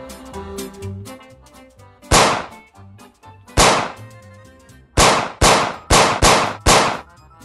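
Seven pistol gunshot sound effects over background music. Two single shots come about a second and a half apart, then five follow in quick succession near the end.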